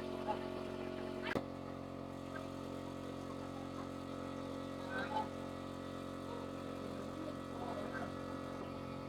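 Small engine idling steadily, with a sharp click about one and a half seconds in and a couple of light knocks later.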